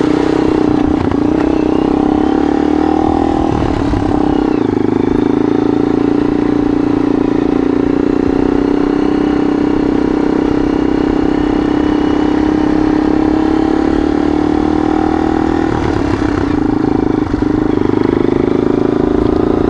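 Yamaha XT dual-sport motorcycle engine running steadily while the bike rides along at an even pace. The engine note shifts slightly about four seconds in and again near sixteen seconds.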